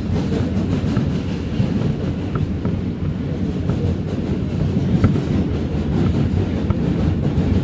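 New York City Q subway train running across the Manhattan Bridge, heard from inside the car: a steady low rumble of wheels on the track, with a few scattered light clicks.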